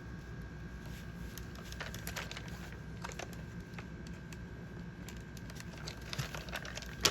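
Faint clicks and taps of hard plastic toy parts being handled and fitted together on the Masters of the Universe 200X Bashing Beetle vehicle, with a sharper click near the end.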